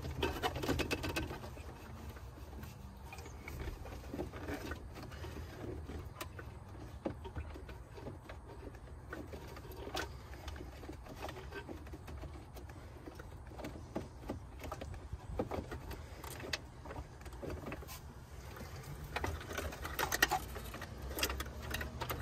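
Wiring harnesses and plastic connectors being handled behind a car dashboard: scattered small clicks and rustles, busiest at the start and near the end, over a steady low hum.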